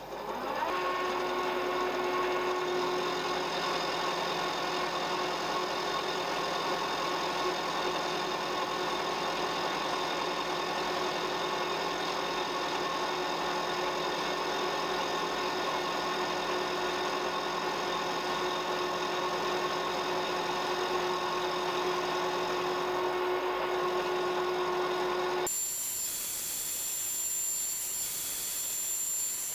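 Milling machine running, its end mill taking a light 0.25 mm (10 thou) cut along a metal bar: a steady machine whine with a few held tones. The sound changes abruptly a few seconds before the end.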